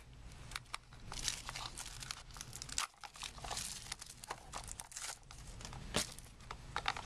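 Wrapper of a trading-card bonus pack being torn open and crinkled by hand: irregular crackling and rustling with sharp little snaps.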